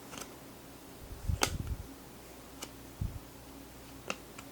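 Hands handling trading cards from a freshly opened pack: a few sharp light clicks and taps spaced about a second apart, the loudest about a second and a half in, with a couple of soft thumps.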